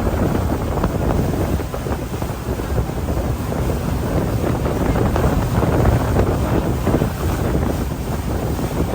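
Wind buffeting the microphone aboard a motorboat, over a steady rush of boat and water noise.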